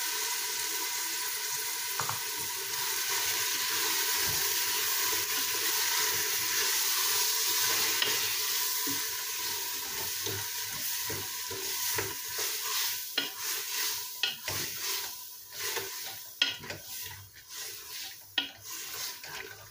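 Fried onions and tomato paste sizzling in oil in a pressure-cooker pot while a wooden spoon stirs them. The sizzle is steady at first. From about twelve seconds in it thins out, and the spoon scraping and knocking on the pot comes through as a string of sharp clicks.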